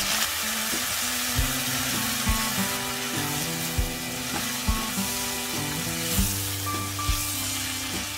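Pork belly, onion and garlic sizzling in hot oil and soy sauce in a nonstick wok, with the scrape and shuffle of a spatula stirring them. Background music with held notes and a steady beat plays over it.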